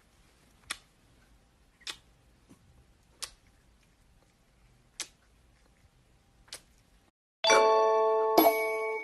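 Faint room tone with five sharp clicks or taps spaced a second or more apart. Then, about seven seconds in, loud bell-like chiming tones start and ring on.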